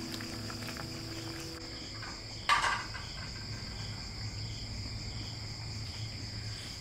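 Steady high-pitched chirring of crickets, with a low hum beneath and one sharp clink about two and a half seconds in.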